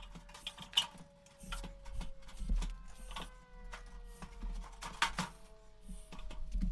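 Steel C-clamps being worked along a forming jig, tightening down to press a stiffening bead into an aluminium fuel tank skin: irregular metallic clicks and knocks of the clamps and their screws. A faint thin tone slides slowly lower in pitch underneath.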